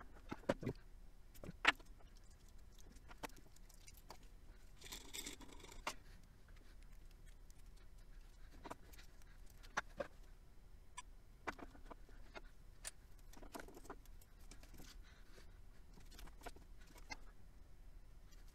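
Scattered light clicks, taps and clinks of a soldering iron, pliers and battery cells being handled on a workbench, with a brief hiss about five seconds in.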